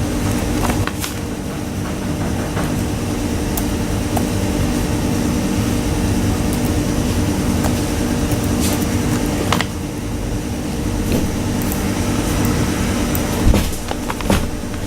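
Electric fan motor running with a steady hum, with a few scattered clicks over it.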